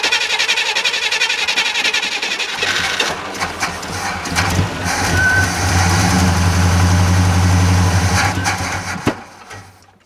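1969 Chevy C10 pickup's engine cranking on the starter, catching about two and a half seconds in and running, then dying about nine seconds in. It is the engine's first start after sitting 15 years, on fresh fuel.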